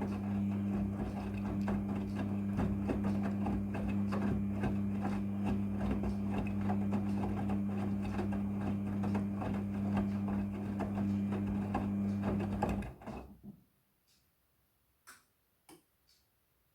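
Midea front-loading washing machine running with a steady hum and fast rattling, stopping abruptly about thirteen seconds in. Two faint clicks follow near the end.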